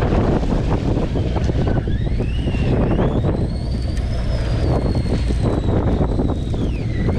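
Boat engine rumbling under heavy wind noise on the microphone. A whine rises in pitch about two seconds in, holds, and drops again near the end.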